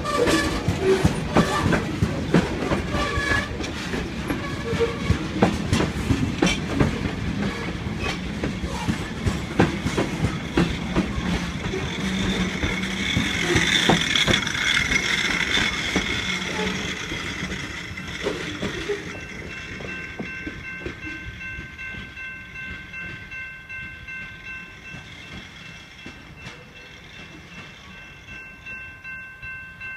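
CSX freight train of boxcars rolling past, wheels clicking rapidly over rail joints. About two-thirds through, the rail noise fades as the end of the train clears, leaving a grade-crossing bell ringing steadily in a regular beat.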